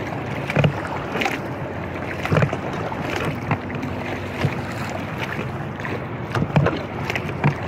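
Inflatable kayak being paddled against the current: a steady wash of water and wind on the microphone, with irregular knocks and rubbing against the inflatable hull.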